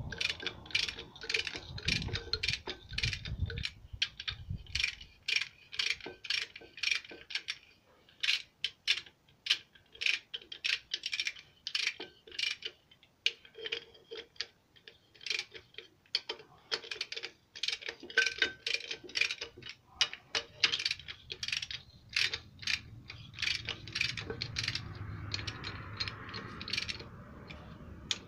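Socket ratchet clicking in runs as it is swung back and forth on the flywheel bolts of a Peugeot 504 diesel engine, with a few low knocks in the first few seconds.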